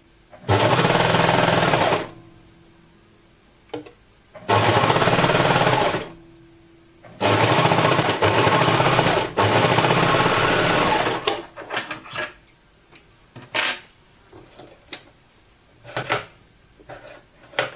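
Overlock (serger) machine stitching a ribbing strip onto a pocket edge in three runs: two short ones of about a second and a half, then a longer one of about four seconds. The motor stops between runs. After the last run come scattered light clicks and knocks as the fabric is handled at the machine.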